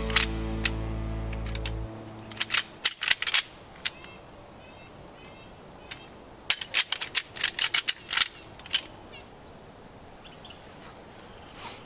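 Music ends about two seconds in. Then come two bursts of sharp, irregular clicks and cracks, the second longer, with a few faint short bird-like chirps between them.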